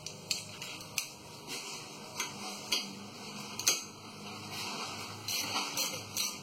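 Socket wrench with an extension being fitted to a brake caliper bolt: a few irregular metal-on-metal clinks and taps.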